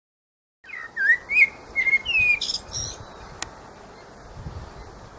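Quick bird-like chirps and whistled glides in a programme's opening title sound, over a steady hiss, starting abruptly out of silence just under a second in, with one sharp click partway through.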